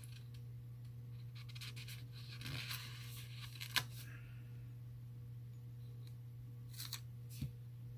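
Paper and sticker sheets being handled: soft rustling and light clicks, with a sharp tick about four seconds in and a short rustle near the end, over a steady low hum.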